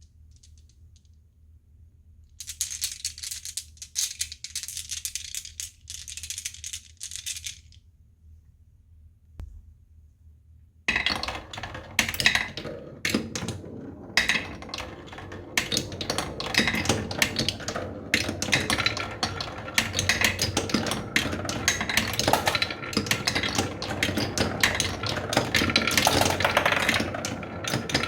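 Many marbles clicking and clattering as they roll through a marble run: a burst of rattling for about five seconds, a pause, then a dense, continuous clatter from about eleven seconds in.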